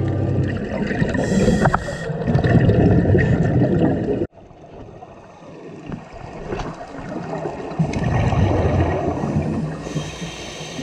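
Underwater scuba sound: regulator breathing and exhaled bubbles gurgling and rushing past the camera in uneven swells. The sound drops abruptly about four seconds in and then builds again.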